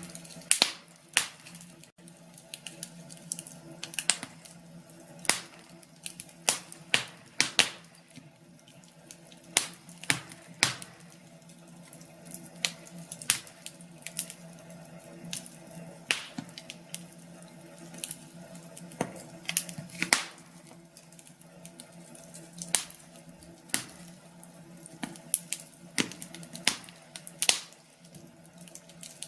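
Wood fire crackling in a fireplace: irregular sharp pops and snaps over a steady low hum.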